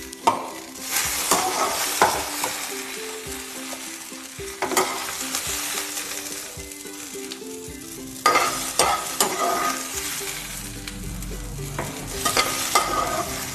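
Fried okra sizzling in hot mustard oil in a metal kadhai while a metal spatula scrapes and clicks against the pan, scooping the finished pieces out.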